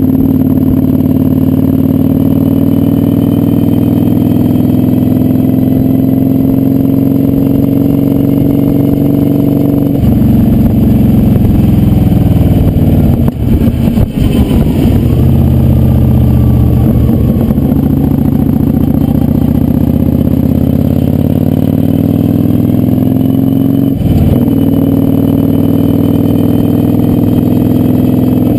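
Kawasaki Vulcan 900's V-twin engine running at speed on the road. Its note steps down about ten seconds in, dips briefly, then climbs again before another step near the end, as the rider shifts and works the throttle through curves.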